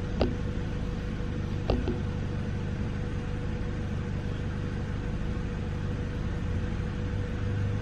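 Steady low machine hum with a faint steady tone, and two sharp clicks about a second and a half apart near the start, from ratchets being handled in the tool box drawer.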